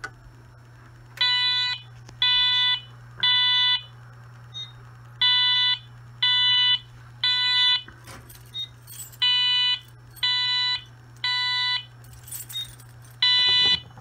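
Fire alarm horn sounding the code-3 temporal pattern on its high tone: three short beeps, a pause, then three more, repeating. The fire panel is in alarm after a System Sensor i3 smoke detector was tripped with its test button. A brief rattle of keys comes near the end.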